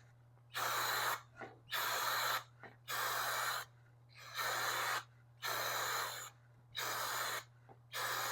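Aerosol can of motorcycle chain cleaner sprayed onto a chain in short bursts: about seven hissing squirts, roughly one a second, each lasting about half a second.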